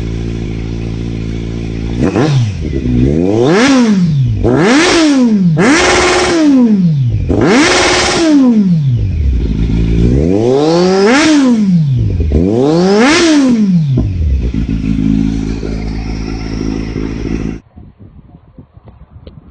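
Kawasaki Z900 inline-four motorcycle engine idling through an aftermarket exhaust, then revved six times in quick blips, two of them held briefly at the top, before dropping back to idle. The sound cuts off suddenly near the end.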